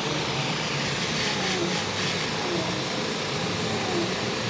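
An airbrush spraying temporary-tattoo paint through a stencil: a steady hiss of air over a low, even hum.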